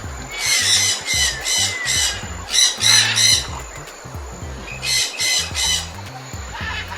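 A bird giving harsh squawks in three runs of several quick calls, over steady background music.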